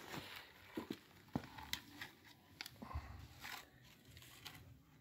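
Faint scattered clicks and rustles of string-light cables and plastic plugs being handled.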